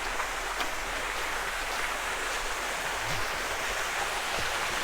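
Steady rushing of water from a small waterfall and stream, with no change in level.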